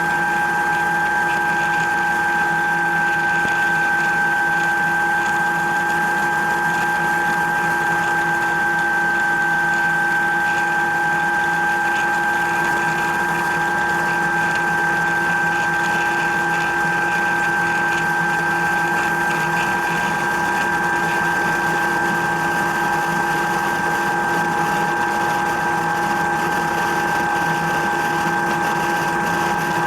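Helicopter in flight, heard from on board: a steady drone with several constant whining tones that hold unchanged throughout.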